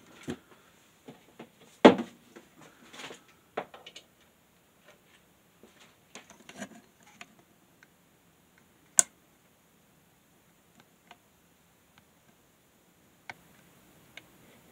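Handling of a white plastic plug-in power meter: its case halves being fitted together and the unit turned in the hands, making scattered plastic clicks and knocks. The loudest are a knock about two seconds in and a sharp click about nine seconds in.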